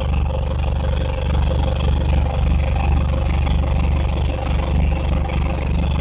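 1980 Case 480D backhoe's diesel engine running steadily, still warming up shortly after a cold start.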